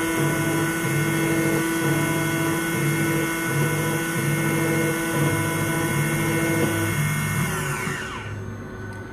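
Mul-T-Lock MT5+ high-security key cutting machine running, a steady motor whine with a low pulsing about every three-quarters of a second. Near the end the motor shuts off and winds down with a falling pitch, the cut finished.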